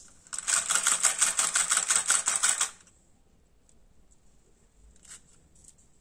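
Small DC motor driving the rowing boat's wooden oar linkage: a loud fast rattle of clicks, about eight a second, for roughly two and a half seconds, then it stops abruptly. Faint handling taps follow.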